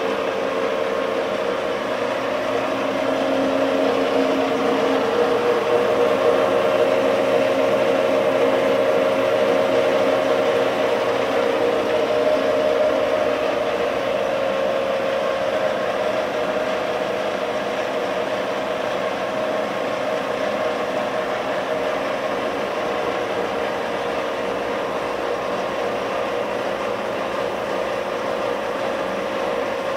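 Aronson HD-100 welding positioner's electric tilt drive, motor and reduction gearing, running steadily with a constant whine as the 48-inch table tilts under pendant control.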